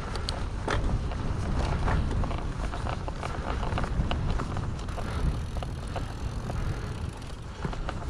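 Mountain bike rolling over a rough trail: a steady low rumble from the tyres and frame, with many small rattles and knocks from the bike as it goes over bumps.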